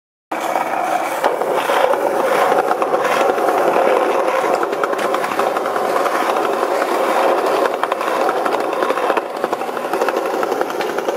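Skateboard wheels rolling on a concrete sidewalk: a steady rumble with many small clicks, starting suddenly just after the start.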